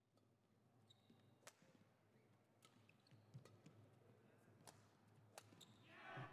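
Badminton rally, heard faintly: sharp racket strikes on the shuttlecock about once a second, with short shoe squeaks on the court, and a brief burst of voices near the end.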